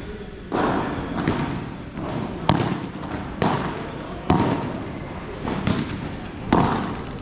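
A padel rally: the ball struck back and forth with rackets and bouncing, about seven sharp pops roughly a second apart.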